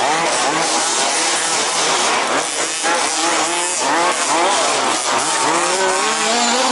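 Several 1/5-scale petrol RC buggies racing, their small two-stroke engines revving up and down in overlapping rising and falling whines.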